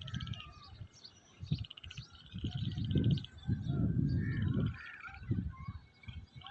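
Wind gusting across the microphone in uneven low rumbling surges, with several birds chirping and giving rapid buzzy trills over it.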